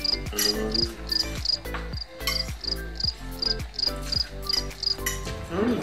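Background music with a steady beat: a soft kick drum, chords, and a high ticking percussion about three times a second. It stops near the end.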